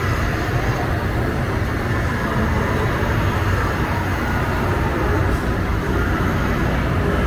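Steady hiss of steam venting from a standing Hogwarts Express replica steam locomotive, over a constant low rumble.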